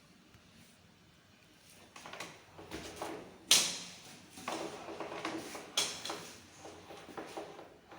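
Handling noise from the vacuum cleaner's power cord and plug being readied and connected: scraping and rustling, with a sharp click about three and a half seconds in and another near six seconds.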